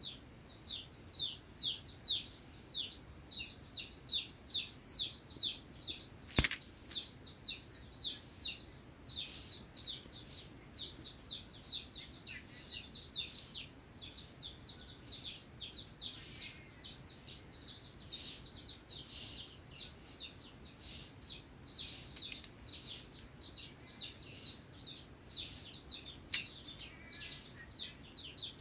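A small bird calling in a rapid, steady string of short down-slurred chirps, about three a second, with one sharp click about six seconds in.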